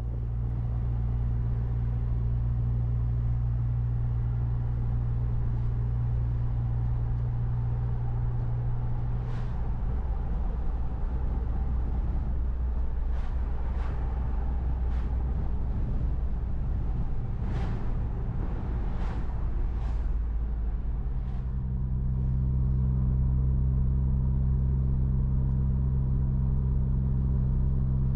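Suzuki Jimny JB64 driving, with a steady low drone of engine and road noise. From about a third of the way in the drone turns rougher, with several sharp knocks. A little past two-thirds it settles back into a steady, slightly louder drone.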